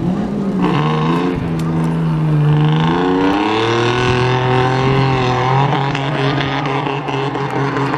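Pickup truck engine revving hard under load through a muddy obstacle course, its pitch climbing and dropping several times.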